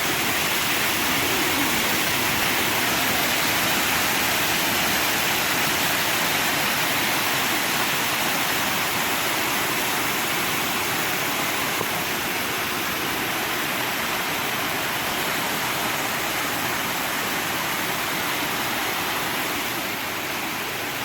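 Water rushing steadily through the water-powered sawmill's flume and wheels.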